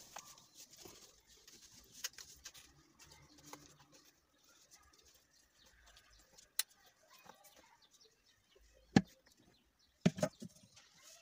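Faint handling of a small dry-powder fire extinguisher as its valve head is unscrewed and lifted off, with a few sharp knocks of metal and plastic parts, the loudest about nine seconds in and a short cluster about a second later.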